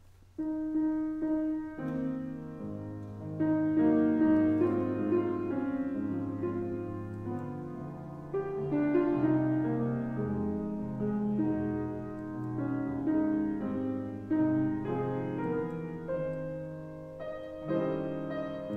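Slow keyboard prelude music: long held chords that begin about half a second in.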